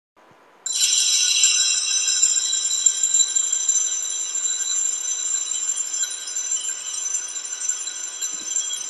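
Altar bells, a cluster of small sanctus bells, shaken in a continuous jingling ring that starts suddenly about a second in. They mark the blessing with the Blessed Sacrament in the monstrance at Benediction.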